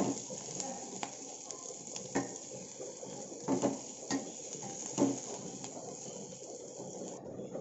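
Nearly cooked clove beans frying in an aluminium pan with a faint steady sizzle. A metal spoon scrapes and knocks against the pan now and then as they are stirred.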